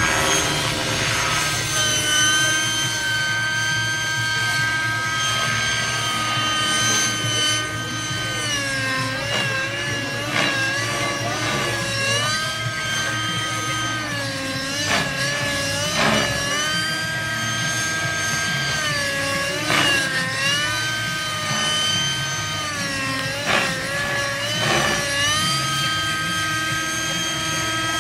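Align T-Rex 600 radio-controlled helicopter flying overhead: a steady pitched whine from its motor and rotor. The pitch dips briefly and recovers several times in the middle of the stretch, then settles steady again near the end.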